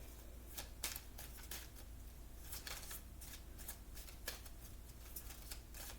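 Tarot cards being shuffled and handled: faint, irregular light clicks and flicks of card stock.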